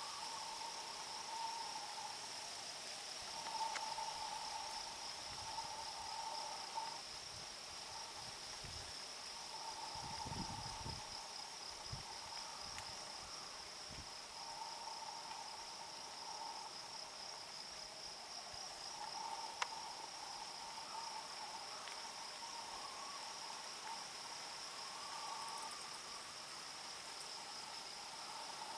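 Summer insects chirring in a steady, unbroken high-pitched drone, with a lower trilling call that comes and goes every few seconds. A single sharp click sounds about two-thirds of the way through.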